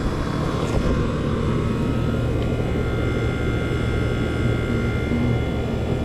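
A 30-year-old Rheem 1.5-ton R-22 air-conditioner condensing unit running: a steady hum from its compressor and condenser fan, with a few faint steady whining tones above it. The unit is running with high head pressure.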